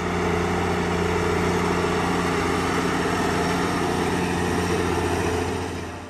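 White farm tractor's diesel engine running steadily while pulling a field cultivator through soil.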